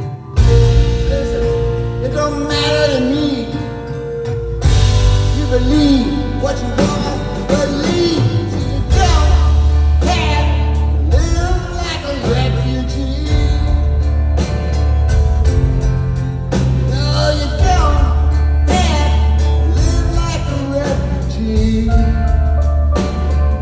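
Live rock band playing loud, with the full band coming in hard about half a second in after a quieter moment.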